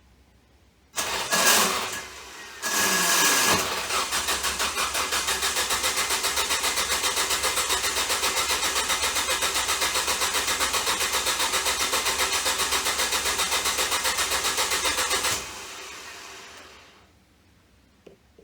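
Ford Focus starter motor cranking the engine, with no words to say whether it catches. A short burst comes about a second in, then a second try near three seconds runs into about eleven seconds of steady, evenly pulsing cranking that cuts off suddenly. The video's title blames a bad starter.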